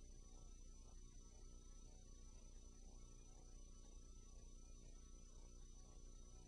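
Near silence: a faint steady hum and hiss with a thin high tone, the noise floor of a silent film transfer.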